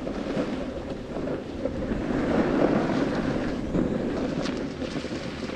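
Wind buffeting an action camera's microphone at speed, mixed with the scrape of a board sliding over packed, tracked snow.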